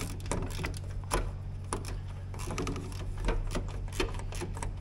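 Irregular light metallic clicks and taps of hands working the nuts and ring-terminal connections on a Wheel Horse garden tractor's starter solenoid.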